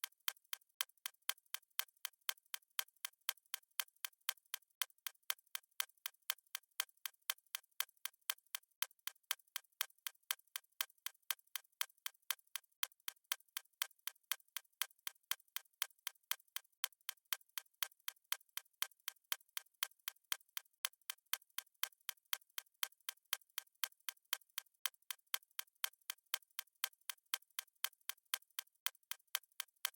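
Countdown timer's clock-ticking sound effect: sharp, evenly spaced ticks keeping a steady beat, thin and clicky with no low end.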